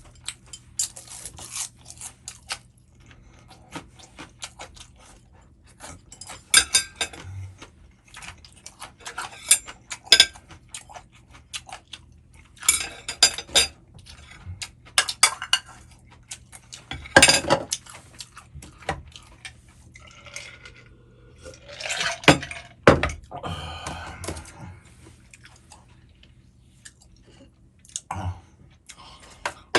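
Utensils clinking and scraping against a dish in scattered bursts, with occasional chewing of Chapagetti noodles.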